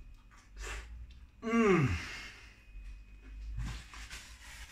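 A man's long sigh of enjoyment through a mouthful of pizza, falling steeply in pitch, about a second and a half in. Softer breathy exhales come before and after it.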